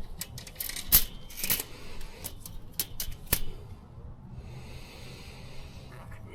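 A run of sharp clicks and knocks from objects being handled, loudest about a second in, then a soft steady hiss for about two seconds near the end.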